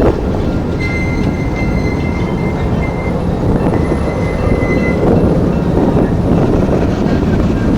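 Passenger train rolling past close by, a steady loud rumble of wheels on rail, with a thin high-pitched wheel squeal coming in about a second in.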